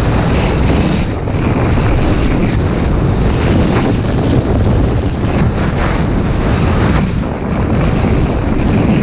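Wind rushing loudly over the microphone of a camera worn by a skier at racing speed, mixed with the scrape of ski edges on groomed snow through the gate turns.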